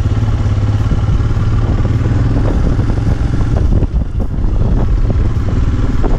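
Royal Enfield Himalayan's single-cylinder engine running steadily as the motorcycle rides along the road, heard from on the bike.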